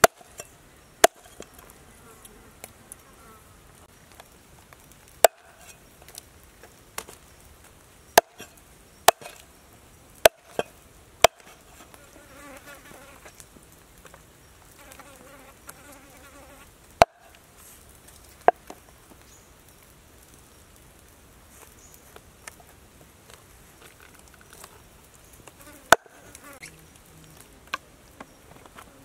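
Meat cleaver chopping raw snake on a wooden chopping board: about ten sharp strikes at irregular intervals. A faint insect buzz comes and goes in between, clearest near the middle.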